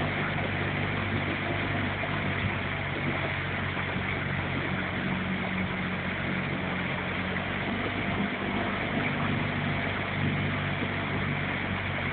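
Motorboat engine running at a steady low speed, a constant low hum under an even hiss of wind and water.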